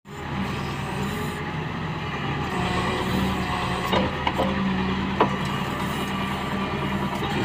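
Case backhoe loader's diesel engine running steadily while it sits stuck in soft mud, with a few sharp knocks about four and five seconds in.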